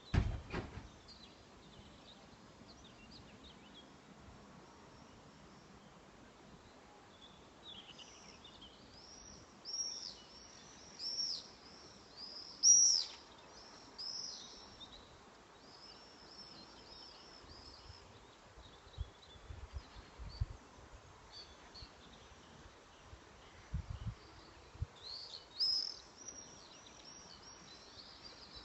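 Songbirds singing: phrases of high, quick, arching chirps that come and go in two main bursts, over a faint steady outdoor background. A few low thumps, one at the very start and several later, break in.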